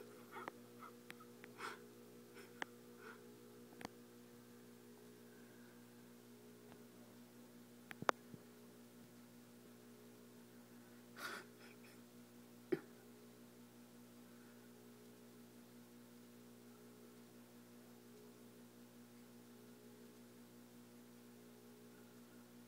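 Near silence: a steady low electrical hum, broken by a few short clicks and taps. Two sharp clicks stand out, about a third of the way in and just past halfway.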